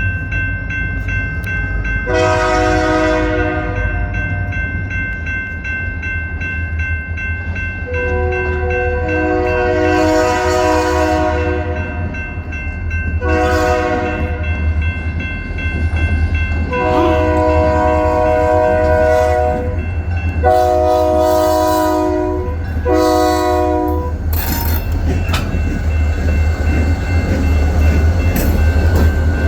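EMD GP40-2 diesel locomotive sounding its multi-chime air horn in a series of six long and short blasts, over the steady low rumble of its diesel engine. Near the end rail and wheel noise grows.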